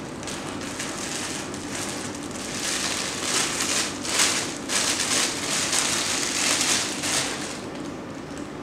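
A plastic bag crinkling and rustling as it is unfolded by hand from around a wallet. The rustles come in a run of bursts, loudest in the middle seconds, then die down.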